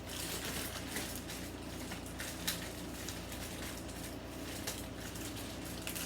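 Packaging and metal parts being handled: scattered light clicks and crinkles, with one sharper click about two and a half seconds in, over a steady low hum.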